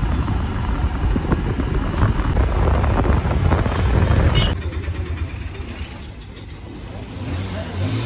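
Motorcycle on the move: the rumble of engine and road with wind noise on the microphone. It cuts abruptly about halfway through to a quieter stretch of road and traffic noise.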